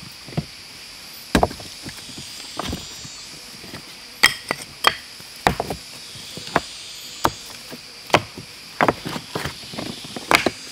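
Irregular sharp chopping strikes, about fifteen of them at uneven intervals and uneven strength, with a steady high-pitched drone behind them.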